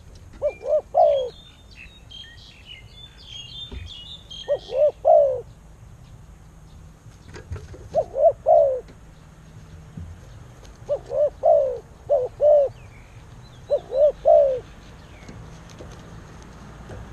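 A dove cooing: five short phrases of two to four low notes, repeated about every three seconds. High chirps of small birds are heard over the first few seconds.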